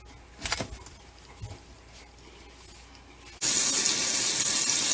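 A kitchen faucet is turned on about three and a half seconds in, and water runs steadily into the sink and down the newly reassembled drain to test the trap for leaks. Before that come two light knocks.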